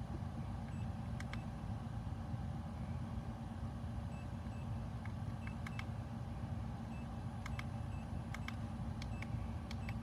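Steady low background hum with faint light clicks scattered through, several of them in quick pairs.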